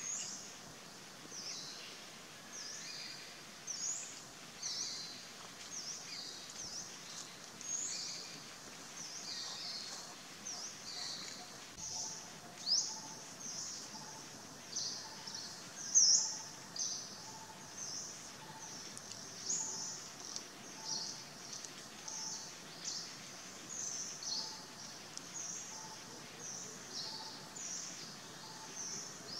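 Tropical forest ambience: many birds chirping in short, high notes throughout, with one louder chirp about halfway through. From a little before the middle, a lower call repeats steadily about once every three-quarters of a second.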